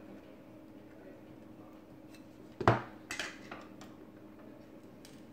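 A sharp click about halfway through, followed by a few lighter clicks: the small metal-and-plastic SIM card tray being worked out of a rugged smartphone by hand.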